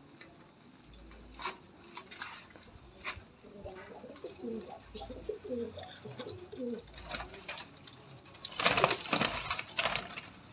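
Domestic pigeons cooing in short, low calls through the middle. About eight and a half seconds in comes a louder noisy rustling burst lasting over a second.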